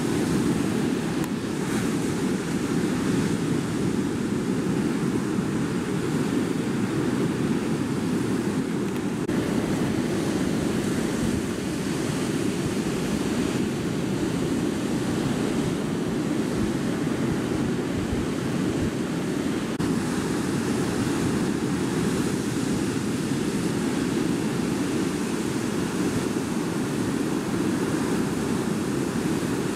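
Breaking surf and whitewater: a steady rushing noise of the waves, with no single crash standing out.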